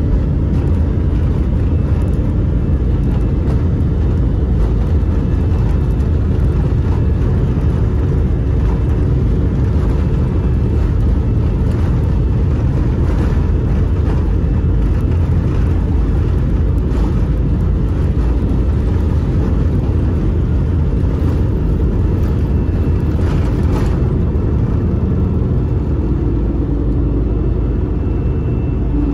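Airbus A319 jet engines at takeoff thrust together with runway rumble, heard from inside the cabin over the wing: a loud, steady, low rumble through the takeoff run and liftoff.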